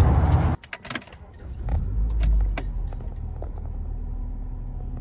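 A burst of background music cuts off about half a second in. Keys jingle, then a Mitsubishi car's engine starts, swelling briefly around two seconds in, and settles into a steady low idle.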